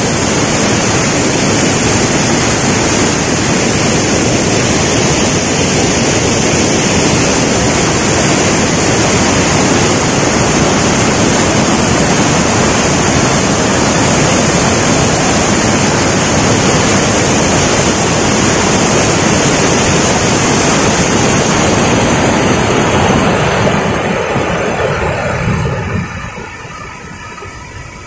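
Waterfall: a loud, steady rush of falling water that drops away sharply near the end.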